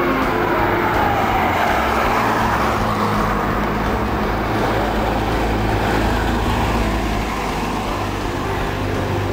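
Vintage fire engine driving slowly past, its engine running low and steady. In the first second or two a falling tone sounds as its siren winds down.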